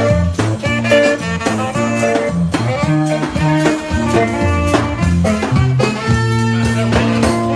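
Music from a rig combining several musical instruments in one device: a lively swing-style tune with regular drum strikes under horn- and guitar-like melody lines.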